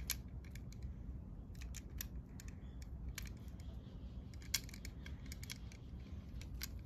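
Sharp, short clicks at uneven intervals, a dozen or so, from a feather teaser wand being flicked and waved for a cat, over a low steady rumble.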